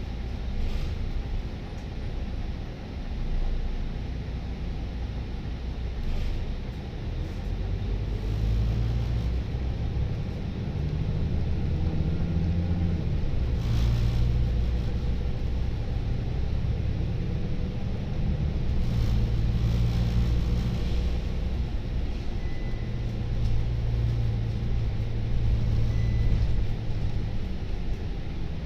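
Volvo B9TL double-decker bus heard from its upper deck while driving: a steady low rumble of the diesel engine and road, the engine note rising and falling as the bus pulls and eases off, with a brief rattle about halfway through.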